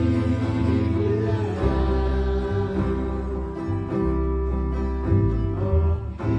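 Slow worship music: sustained chords over a steady, changing bass line, with some singing.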